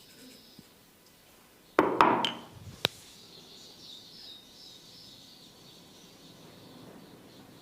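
A quick cluster of sharp knocks and a slap about two seconds in, then one sharp click, from percussive strikes of a head massage. Faint steady insect chirping runs underneath.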